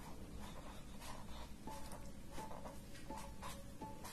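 Felt-tip sign pen scratching across paper in short strokes, a faint dry scrape with each stroke.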